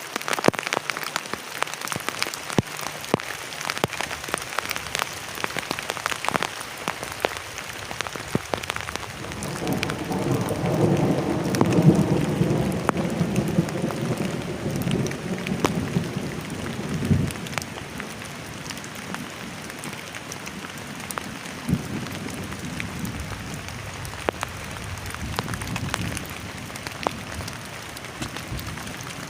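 Heavy rain drumming on a plastic tarp shelter, with many sharp drop ticks. A low rumble of thunder swells from about ten seconds in and dies away after about seventeen seconds.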